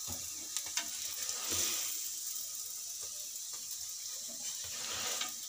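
Aloo paratha sizzling on a hot tawa griddle, briefly louder about a second and a half in, with a few light clicks of metal tongs against the pan.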